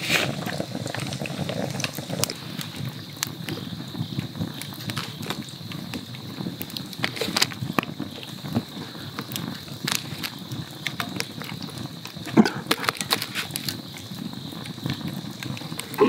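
Wood campfire crackling: irregular sharp snaps over a steady low hiss.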